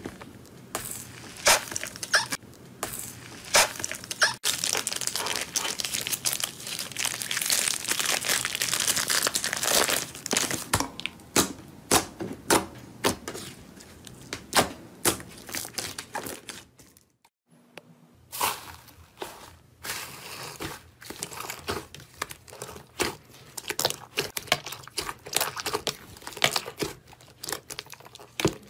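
Slime squeezed and kneaded by hand: a plastic bag around it crinkles, then many sticky clicks and pops come as fingers press and stretch the slime, with a short break a little past halfway.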